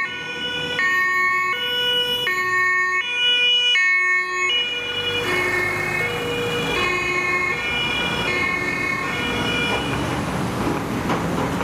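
German two-tone emergency siren (Martinshorn) on a passing THW truck, alternating between a high and a low note about every three-quarters of a second. From about halfway the heavy truck's engine and tyre noise swell as it passes close, and the siren fades toward the end.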